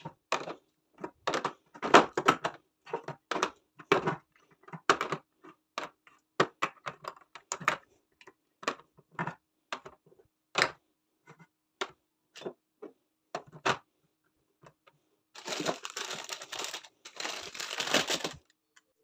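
Metal food tins and glass jars set down one after another into a clear plastic storage bin: a long string of sharp knocks and clinks. Near the end, plastic food packets crinkle for about three seconds.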